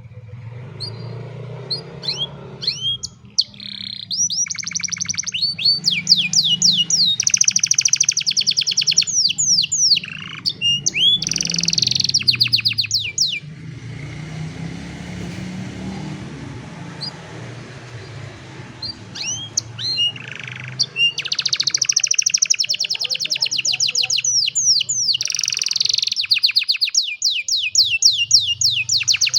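Domestic canary singing: long phrases of fast trills and rising and falling whistled notes, pausing for several seconds in the middle before the song starts again. A low steady hum runs underneath.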